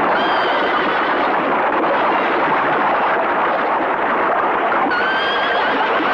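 Horses whinnying over a cavalry charge through surf. One whinny comes shortly after the start and another about five seconds in, over a steady, dense din of the charge and the splashing water.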